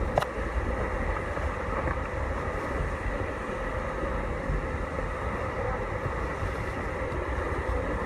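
Steady rush of the Seljalandsfoss waterfall with a deep low rumble, picked up by a phone inside a waterproof case.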